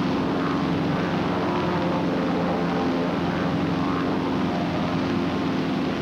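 Radial piston engines of North American SNJ trainers droning steadily in level flight, an even propeller hum with no change in pitch.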